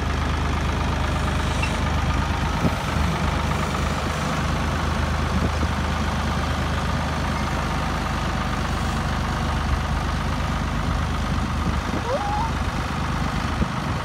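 Ford diesel farm tractor's engine running steadily at low speed as it pulls a trailer loaded with loose hay, a deep even hum.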